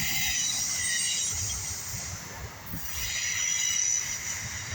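Freight train cars rolling past, their steel wheels squealing against the rail in two high-pitched stretches, about the first second and again for over a second in the second half, over a low rumble and knocking of the cars.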